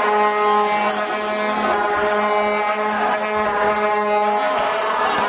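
Background music of long held droning notes that change pitch every second or so.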